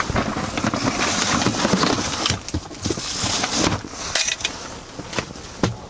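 Rummaging in a plastic ice-fishing box for a gaff: a rustling, rattling clatter of gear with sharp clicks and knocks, the rustle densest over the first couple of seconds.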